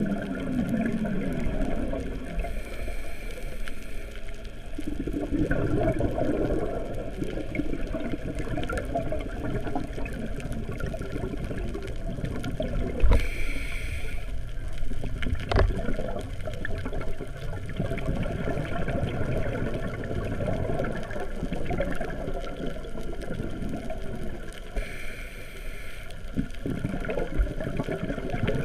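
Muffled underwater noise through a GoPro Hero 3's waterproof housing: a low, churning rumble with gurgling of the diver's exhaled bubbles, swelling and fading every several seconds. A sharp click sounds about halfway through.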